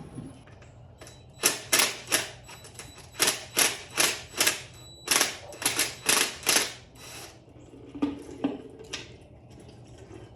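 A run of about fourteen sharp clicks, two or three a second, each with a short ring, stopping about seven seconds in. A couple of weaker knocks follow.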